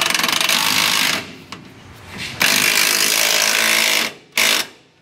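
Power ratchet running in three bursts: a run of about a second, a longer run starting about two and a half seconds in, and a short blip near the end. It is tightening the lower mounting bolt of a new rear shock absorber on a pickup's axle.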